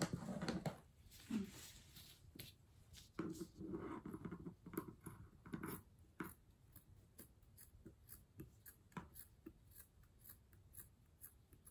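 Hands handling a cut t-shirt and craft materials: soft cloth rustling in the first half, then a run of small clicks and taps.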